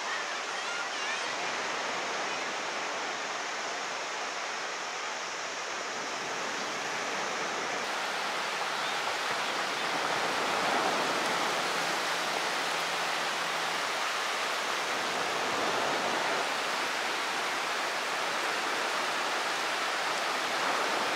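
Steady rushing of small sea waves breaking and washing up a sandy shore, swelling a little now and then.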